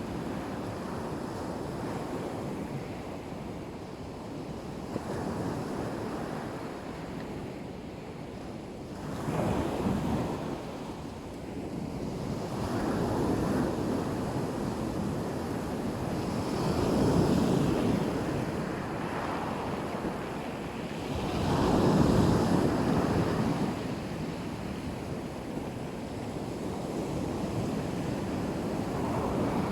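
Black Sea waves breaking on the shore in a steady wash, with several larger waves swelling and falling away, the loudest about 17 and 22 seconds in. Wind rumbles on the microphone.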